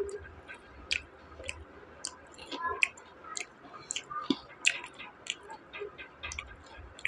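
A person chewing crunchy fried onion pakodas close to a clip-on microphone: an irregular run of short crisp crunches and mouth clicks, a few each second.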